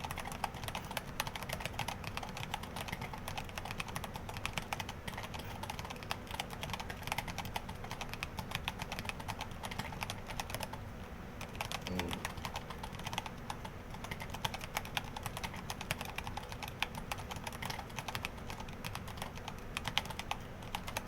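Fast, continuous typing on a Dactyl Minidox split mechanical keyboard with Hako Royal True switches: a dense stream of key clicks, with a brief lull about eleven seconds in.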